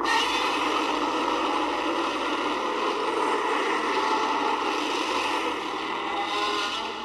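Godzilla roar sound effect: one long, harsh cry that bursts in suddenly, holds for several seconds and tails off near the end.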